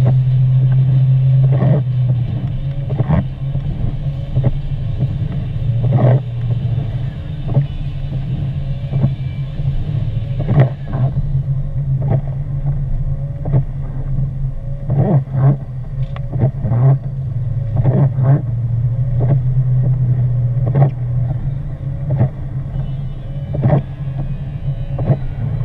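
Car driving: a steady low road and engine hum, with irregular short knocks and ticks over it.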